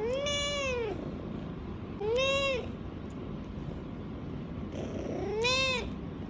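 A cat meowing three times, each meow rising and then falling in pitch; the first is the longest.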